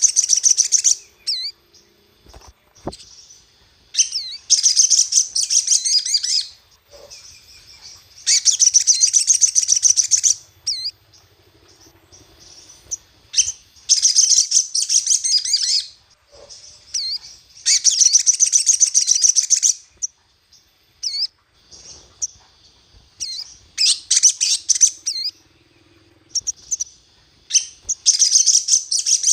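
Little spiderhunter (sogon) song: repeated bursts of fast, high chattering chirps, each lasting about two seconds, with short single calls in the gaps. A lure recording used to provoke caged birds into singing.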